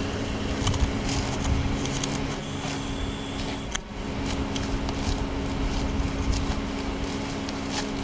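Steady low hum of an idling car engine, under an irregular low rumble.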